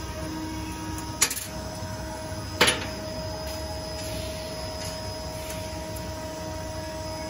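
Two sharp metal clicks about a second and a half apart as the aluminium bottle-holder gripper is fitted onto the screen printing machine's arm, the second louder. Under them the machine hums steadily.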